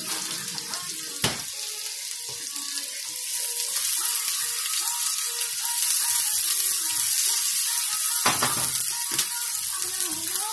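Broccoli and onion slices sizzling in oil in a nonstick frying pan, stirred with a spatula; the sizzle grows louder a few seconds in, with a couple of sharp knocks.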